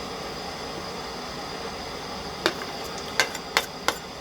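Four sharp clicks in the second half, a cook's utensils knocking against each other or the pot, over a steady hiss.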